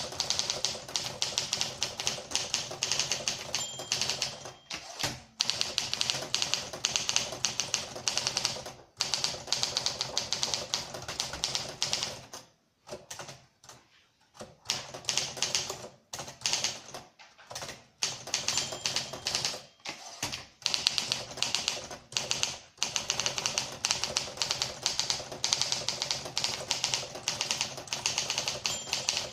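Olympia SM4 manual typewriter being typed on: fast runs of key strikes, broken by short pauses and one longer pause about halfway. A brief ring sounds about 4 seconds in and again near the end.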